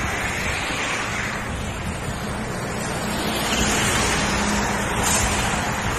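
Steady wind rush on a phone microphone held out by a rider on a moving road bike, with motor traffic passing on the highway.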